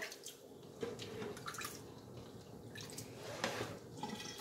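Water dripping in a stainless-steel sink, with faint wet handling of a raw rack of pork spareribs and a few light taps spread through.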